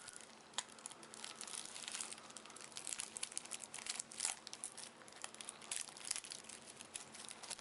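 A small card-deck box and its packaging being opened and handled by hand: faint, irregular crinkling and rustling.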